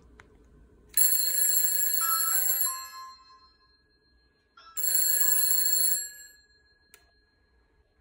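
An antique GPO Bell 1a telephone repeater bell ringing twice, each ring about a second and a half long and two seconds apart. It is set off by a press of a Ring doorbell button, relayed over WiFi to a Sonoff SV module that switches a BT Ringing Generator 2A.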